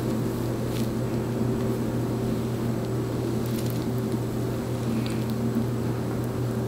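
A steady low hum, with a few faint rustles and light taps from hair being handled.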